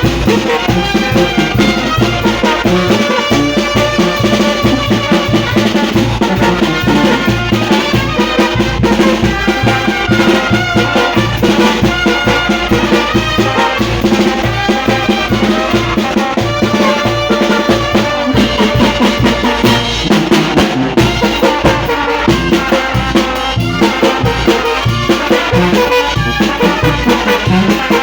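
Brass band music: trumpets and trombones playing a melody over drums, with a steady, even beat.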